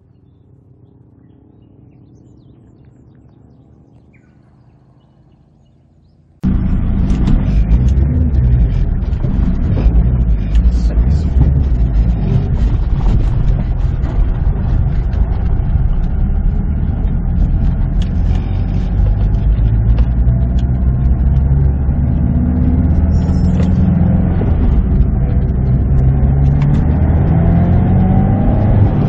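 Faint background for about six seconds, then an abrupt cut to the cabin sound of a Subaru WRX STI (VAB) driving: the EJ20 turbocharged flat-four running under way, with road and tyre noise and scattered knocks from the rough surface. The engine climbs in pitch near the end.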